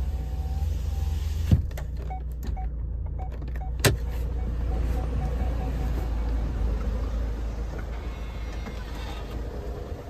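Inside a Ford Galaxy, a low steady engine-and-road rumble with two sharp clicks, the second about four seconds in. Short beeps repeat about four times a second for a few seconds, typical of parking sensors as the car draws in.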